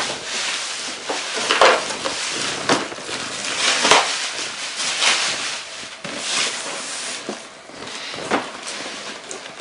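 Packaging being handled during an unboxing: rustling and rubbing, swelling into sharper scrapes about once a second.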